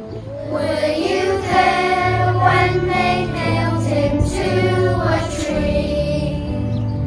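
A children's choir singing a song over instrumental backing, the voices coming in about half a second in.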